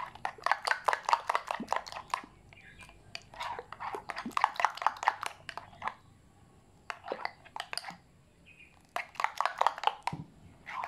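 Wet batter of flour, margarine and water being squeezed and beaten by hand in a glass bowl: quick squelching slaps, several a second, coming in bursts with short pauses. The batter is being worked to a medium consistency, neither too runny nor too thick.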